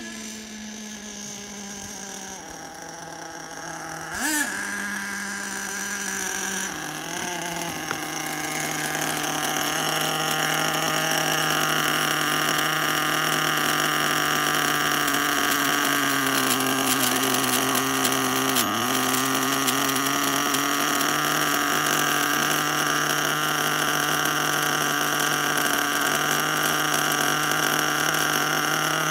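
HPI Savage 4.1 nitro monster truck's 4.1 cc glow engine running: rising and falling in pitch with a quick rev blip in the first seconds, then idling steadily at close range while it is being tuned, its pitch dipping briefly once around the middle.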